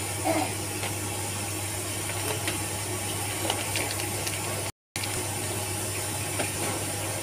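Light rustling and tapping of brown wrapping paper as rice portions are folded into packets by hand, over a steady hiss and low hum. The sound cuts out completely for a moment about five seconds in.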